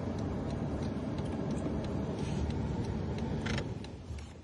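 Steady low rumble of background noise, likely a vehicle or outdoor hum, with faint regular ticking; a short knock about three and a half seconds in, after which it goes quieter.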